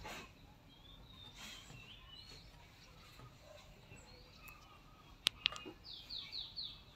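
Small birds chirping in the background, with a quick run of four falling chirps near the end. A cleaver chops on a plastic cutting board, and two sharp clicks come about five seconds in.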